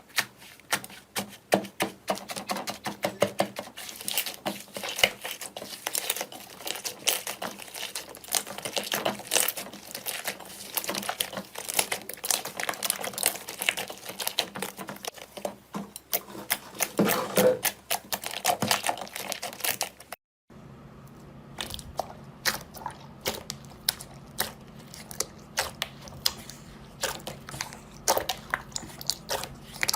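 Slime being squeezed and pressed by hand, giving a dense run of sharp crackles and clicks. About two-thirds through it breaks off for a moment and starts again, with a steady low hum underneath.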